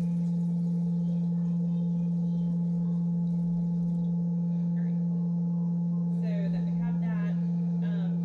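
Electric cream separator running at a steady speed, its spinning bowl giving a constant low hum.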